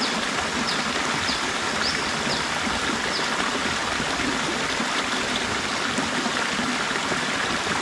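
A small river cascade pouring into a pool: steady rushing, splashing water. A few short high chirps sound over it in the first few seconds.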